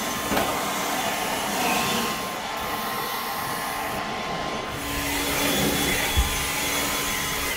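Handheld leaf blower running at full speed, blowing loose dirt and rodent-nest debris out of a truck cab floor, a steady rush of air with a faint motor whine. It cuts off right at the end.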